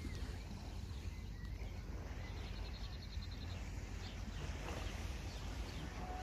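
Steady low rumble of wind and outdoor sea ambience, with a short rapid high bird trill about two and a half seconds in.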